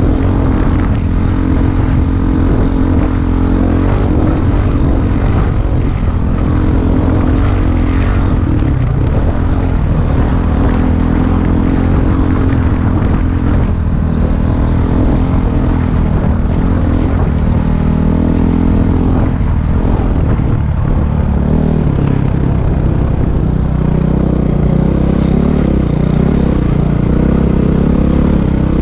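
Engine of an off-road vehicle running steadily under way on a gravel trail, heard from a camera mounted on the vehicle. The engine note rises and falls a little with the throttle and is busier near the end.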